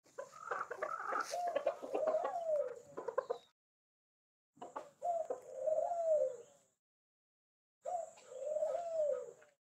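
Chickens clucking, heard in three short bursts separated by dead silence, each with a drawn-out call that rises and falls.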